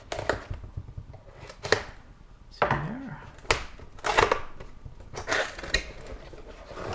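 A keyboard's retail box and its packaging being opened and handled by hand: a string of short, sharp rustles and scrapes, about seven of them.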